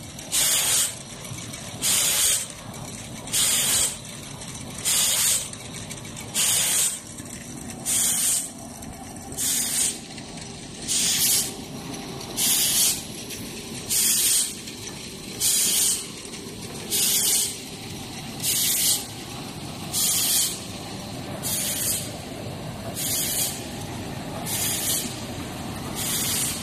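Ampoule washing machine's jets hissing in short, sharp bursts about every second and a half, in a steady rhythm over the running hum of the line's machinery.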